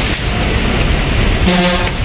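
Steady roar of a gas wok burner running at full flame. A short vehicle horn toot sounds about a second and a half in.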